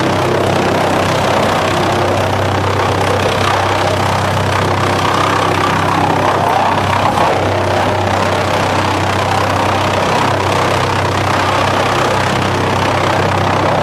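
DFR4-550s drum chipper running and chipping wooden slabs and offcuts drawn in by its toothed feed roller. A steady low hum with continuous noisy chipping over it.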